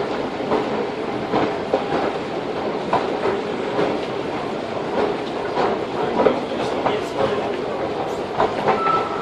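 Metro station escalator running: a steady mechanical rumble with irregular clicks, under a general echoing station din. A short steady tone sounds near the end.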